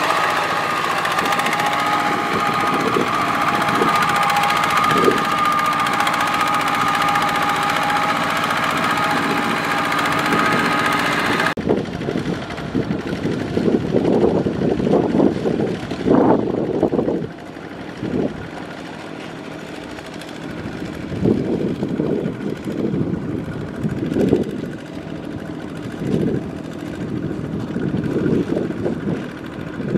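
Single-cylinder diesel engines of Kubota walk-behind power tillers running hard under load in mud. The sound starts as one close, steady engine note. About eleven and a half seconds in it cuts abruptly to a quieter engine sound that rises and falls as the throttle opens and eases.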